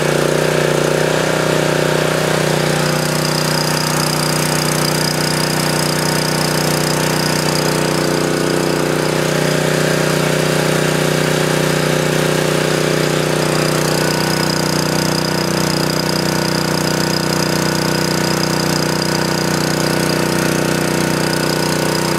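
A 9 HP Honda GX single-cylinder engine on a backup generator running at a steady speed, warming up after a cold start. A faint steady high whine runs along with it.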